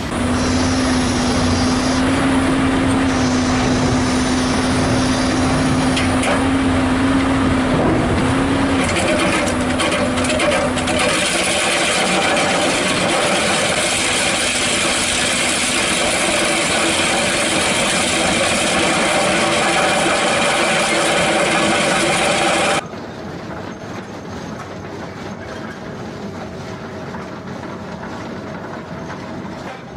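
Hydraulic excavators working attachments in a run of separate clips: an engine with a steady hum for about the first ten seconds, then louder grinding of an attachment working into rubble, and after a sudden cut about three quarters of the way through, a quieter drum cutter grinding into rock.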